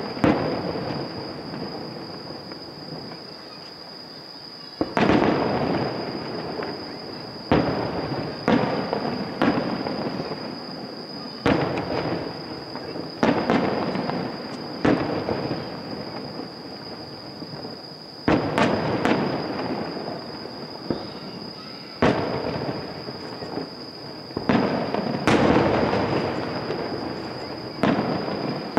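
Aerial firework shells bursting, about a dozen sharp booms at irregular gaps of one to four seconds. Each boom trails off in a long echo.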